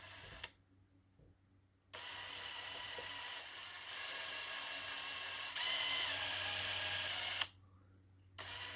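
Electric hand drill with a small bit, drilling out a broken screw. It starts about two seconds in, speeds up partway through, stops for about a second near the end, then starts again.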